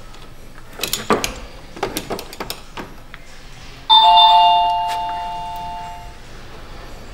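A few light clicks and knocks from hand work in a car's engine bay, then about four seconds in a two-note doorbell chime sounds, a higher note followed at once by a lower one, both ringing out over about two seconds.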